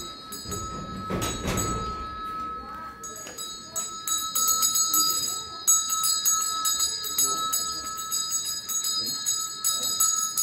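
Puja hand bell rung continuously, its ringing renewed by quick repeated strikes, during the worship of the machines. A brief low rustle about a second in.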